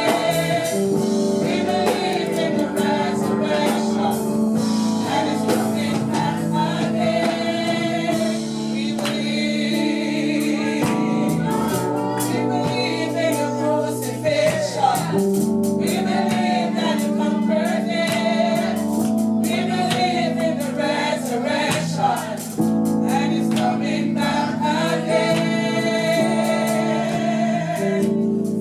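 Congregation singing a gospel hymn with musical accompaniment and a steady percussive beat.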